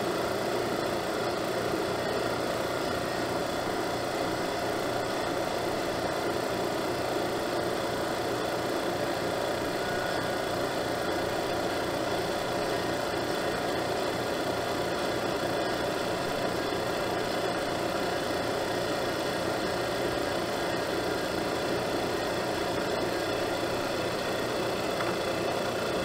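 Appion self-contained refrigerant recovery machine running steadily, its compressor pulling R-410A out of an air conditioner's line set and evaporator into a recovery tank.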